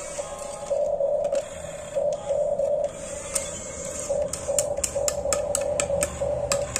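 Small electric motors of a radio-controlled construction model whining in short on-off bursts as it is worked, with a quick run of sharp clicks about halfway through.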